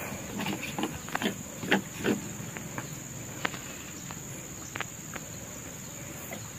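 Crickets or similar insects trilling in a steady, high-pitched drone, with a few short knocks and clicks scattered through, the loudest about two seconds in.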